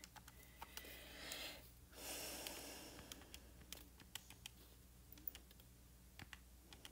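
Faint, irregular clicks of calculator keys being pressed, a few a second, as a calculation is keyed in.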